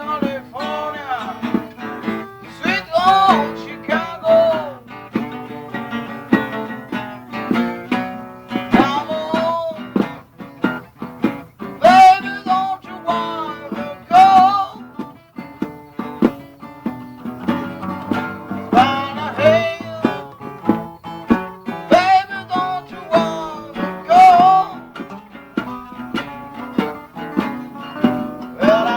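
Blues band jamming: an instrumental with guitar to the fore, its lead line full of bent notes that slide up and down in pitch.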